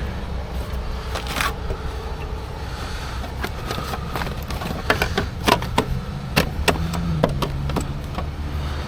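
Scattered sharp clicks and knocks of hard objects being handled, bunched together a little past the middle, over a steady low rumble.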